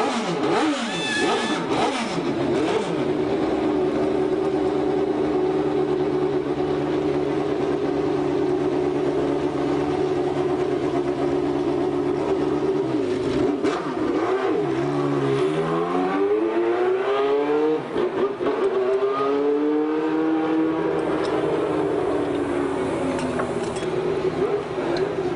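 Formula One car's engine running steadily at idle, then revved several times about halfway through, its pitch rising and falling before it settles back to a steady idle.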